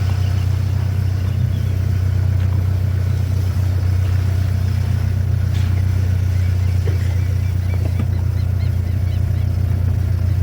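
Steady low drone of a car driving, engine and road noise without change in pitch.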